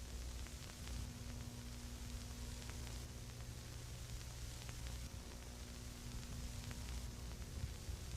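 Faint background noise: a low steady hum and hiss with a few light ticks, room tone.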